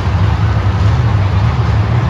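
Monster truck engines running with a steady, loud, low rumble.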